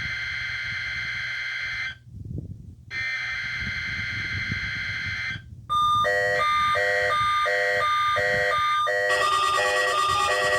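NOAA Weather Radio SAME header bursts: two steady, screeching digital data bursts about two and a half seconds long, a second apart, marking the start of the Required Weekly Test. About six seconds in they give way to rhythmic electronic beeping that alternates between a higher and a lower pitch, about two beeps a second.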